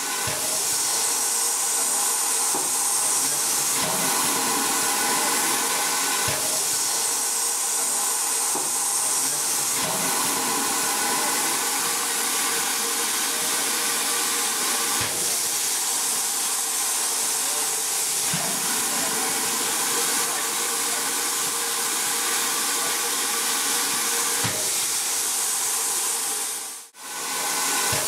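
Steady, loud hiss of steam from the K-class steam locomotive K163, which is in steam, with a few faint clicks now and then.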